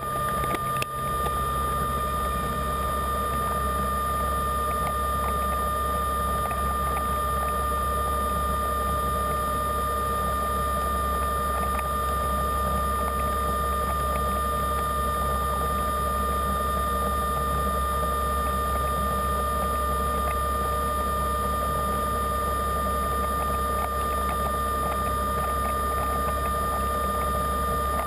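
Diver propulsion vehicle (underwater scooter) motor running steadily underwater: a constant high whine over a low hum that settles in about a second in.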